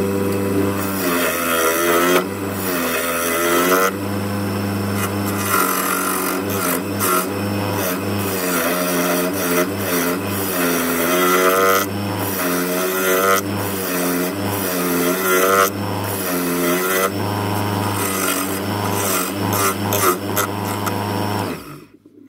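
Wood lathe running with a square cherry blank spinning, a gouge cutting in and out as the blank is roughed toward round; the motor hum holds steady while the cutting noise comes and goes in bursts and the pitch wavers under load. The lathe is switched off near the end and the sound stops abruptly.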